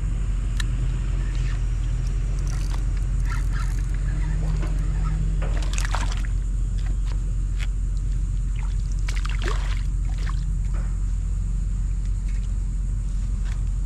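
Low, steady engine rumble of a large container ship passing on the water, with scattered light clicks and knocks over it.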